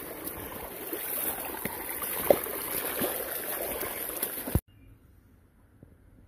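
Rain-fed stream running and splashing over rocks, a steady rush of water with a few sharp knocks mixed in. It cuts off suddenly about four and a half seconds in, leaving only faint background.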